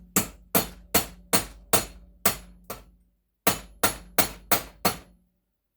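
Hammer blows on a metal water heater valve fitting to drive a stuck steel piece out of it: about seven sharp strikes, a short pause, then five more, with the metal ringing faintly between blows.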